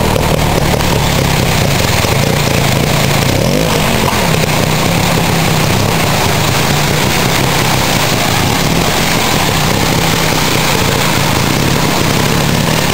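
Trial motorcycle engine running at low revs, briefly rising and falling about three and a half seconds in, under a steady loud hiss.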